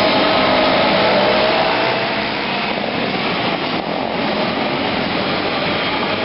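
Engines of several small dirt-track race cars running in a large indoor arena, a steady, dense engine drone. A climbing engine note stands out in the first second or so, and the sound eases slightly about two seconds in as the cars move away.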